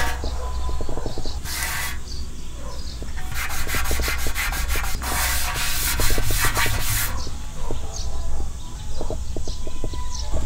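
Gloved hand rubbing and scraping across the black tray of a portable fire-pit stove: scratchy rubbing noise in bursts, the longest from about three to seven seconds in, then a few light knocks near the end.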